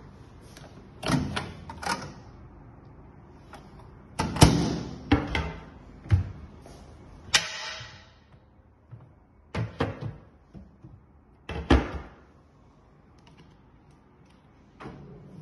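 Kitchen cupboard doors being opened and shut by hand: several separate bursts of clicks and knocks from the doors and hinges, some with a brief rattle after.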